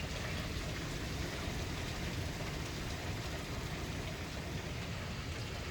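Heavy rain falling hard, a steady, even hiss with no letup.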